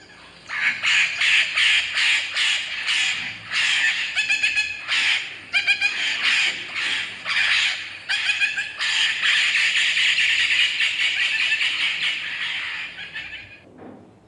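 Macaw parrot squawking: a rapid run of harsh, screechy calls, then one long drawn-out screech that fades near the end.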